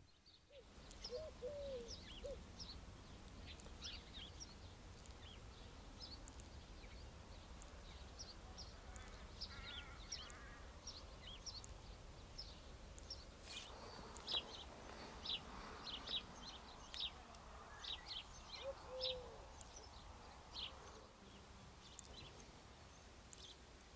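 Small birds chirping in short, high notes, scattered throughout and busier in the second half, over a faint, steady low rumble.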